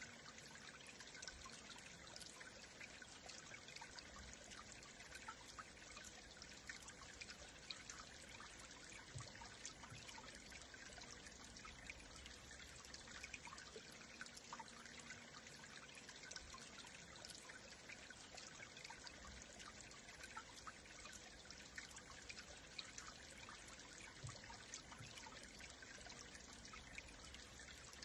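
A stream flowing, heard faintly: a steady trickling babble of water with many small splashes and droplets.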